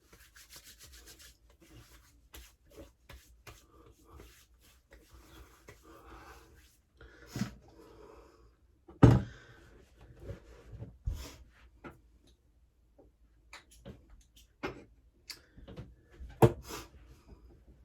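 Scattered small clicks, taps and rustles of toiletry bottles being handled, opened and set down, with louder knocks about seven, nine and sixteen seconds in.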